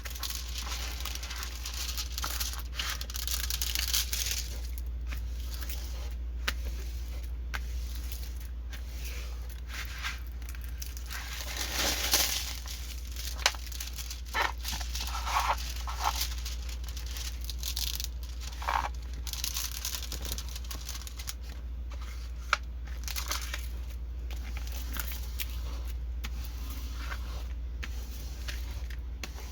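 Plastic packaging of a diamond painting kit being torn open and handled: irregular crinkling and rustling with occasional sharp clicks, busiest about twelve seconds in, over a steady low hum.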